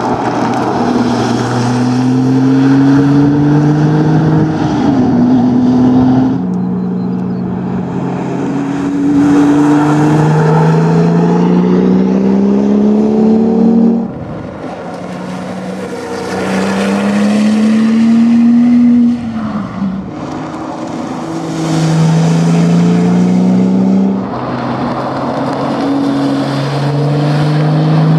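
Porsche 997 GT2's twin-turbo flat-six through a QuickSilver exhaust, accelerating hard through the gears in several runs. The engine note climbs steadily and drops back at each gear change.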